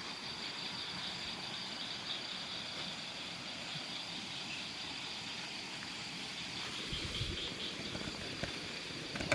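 Crickets and other insects chirping in a steady night chorus, with a few low thuds about seven seconds in.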